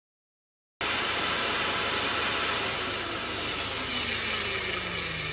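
Electric magnetic drill running while drilling out a snapped track-guide bolt in an excavator's track frame; the sound starts abruptly just under a second in. About halfway through it eases off and its whine slides steadily down in pitch as the motor winds down.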